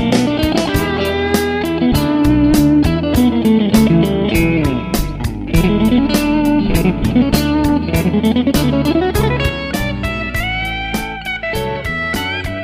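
Instrumental background music: electric guitar with sliding, bending notes over a steady beat.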